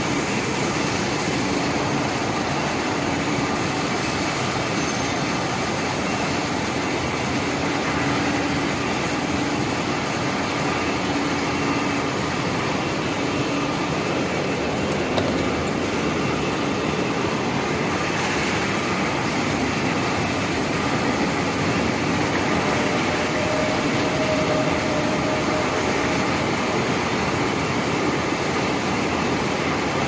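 Cable-making production line machinery running: a steady, even mechanical noise with a few faint hums.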